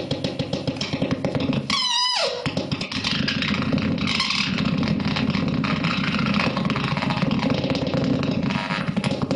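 Circuit-bent floor effects pedal, its opened circuit board's contacts bridged with bare fingers, putting out a rapid electronic buzz that keeps shifting, with a quick falling pitch sweep about two seconds in.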